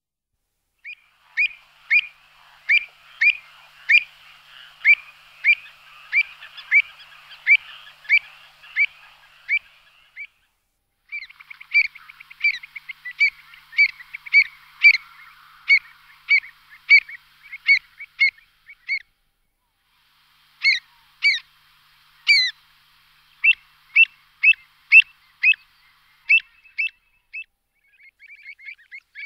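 A small bird calling over and over: short, high chirps about two a second, each dropping quickly in pitch, with two brief breaks along the way.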